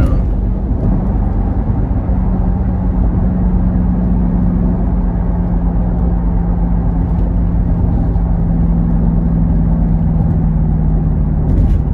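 Dodge Durango SRT 392's 6.4-litre HEMI V8 cruising at freeway speed: a steady low engine drone that sinks slightly in pitch, over a constant rush of tyre and road noise.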